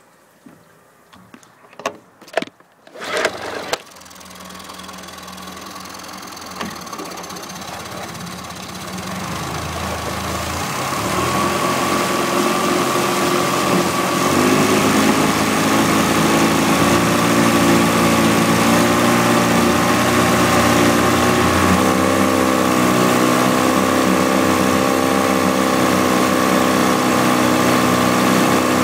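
A few clicks, then a Yamaha F15 two-cylinder four-stroke outboard starts about three seconds in and runs steadily with its cowling off. It grows louder over the next several seconds, and its note shifts slightly twice as the revs change.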